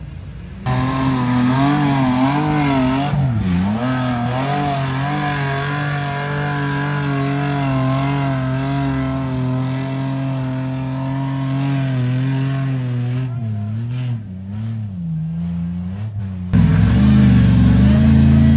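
Off-road 4x4's engine running under load, its revs rising and falling, then holding steady for several seconds before wavering again. The sound changes abruptly about a second in and again near the end.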